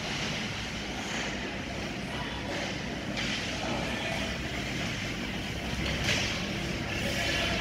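Ice hockey rink ambience: a steady hum of the hall with skates on the ice and faint voices.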